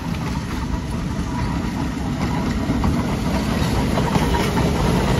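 Chicago North Shore Line electric interurban car rolling by on the track, its wheels rumbling on the rails and growing louder as it nears, with scattered clicks.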